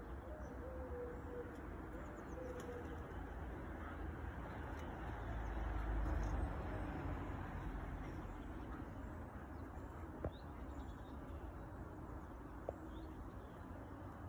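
Early-morning birds: a dove cooing in the first couple of seconds and small birds chirping faintly, over a low rumble that swells around the middle. Two short clicks come near the end.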